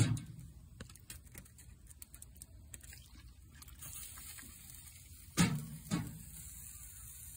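Faint scattered ticks and crackles, then two dull knocks about half a second apart near the end, over a steady high hiss.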